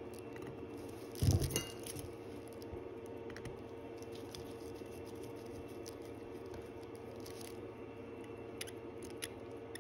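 Watchmaker's tools and small metal watch parts handled on the bench while the movement's case clamps are fitted: a brief clatter about a second in, then a few light clicks near the end, over a faint steady hum.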